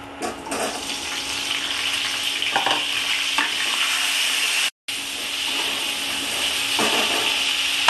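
Cauliflower florets dropped into hot mustard oil and ghee in a kadai, sizzling loudly as they fry and are stirred with a wooden spatula, with a few scrapes against the pan. The sound cuts out for a moment past the middle.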